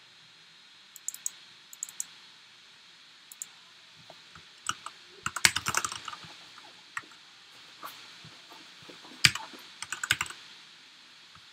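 Keys clicking on a computer keyboard: a few single clicks, then a quick run of typing about five seconds in, and another cluster of keystrokes near the end.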